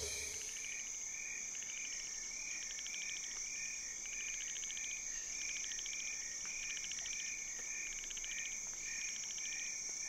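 Tropical rainforest chorus of insects and frogs: a steady high-pitched insect drone, a short call repeating about twice a second, and recurring bursts of rapid ticking pulses.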